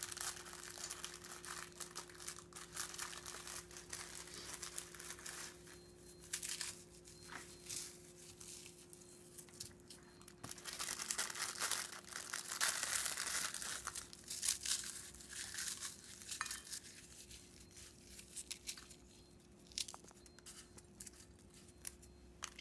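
Keebler Townhouse crackers being crushed by hand into crumbs: irregular crunching and rustling, busiest about halfway through.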